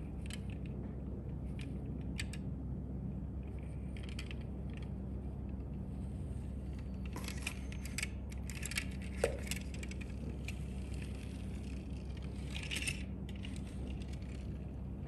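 Scattered light clicks and small metallic rattles over a steady low hum. They come mostly between about seven and ten seconds in, with one sharp tick near nine seconds, and again briefly near thirteen seconds.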